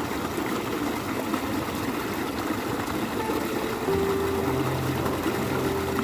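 Water pouring and rushing steadily as it falls through a village stream channel. A faint steady hum joins about four seconds in.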